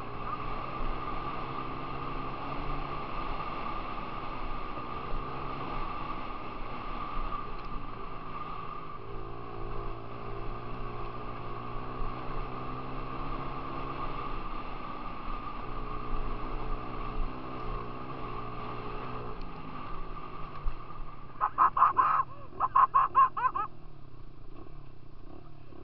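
Dirt bike engine heard from on board while riding a gravel road, its pitch stepping up and down as the throttle and gears change. A few loud short bursts stand out near the end.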